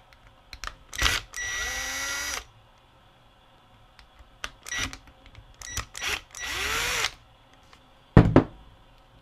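Cordless drill/driver spinning a small screw in the plastic bracket of a VCR loading motor. It runs in two short bursts, about a second and then about half a second, with light clicks of the bit between them. A sharp double knock about eight seconds in is the loudest sound.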